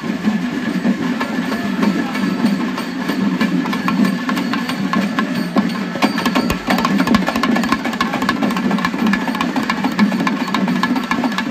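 A troupe of large frame drums beaten with sticks, playing a fast, dense rhythm for a festival procession.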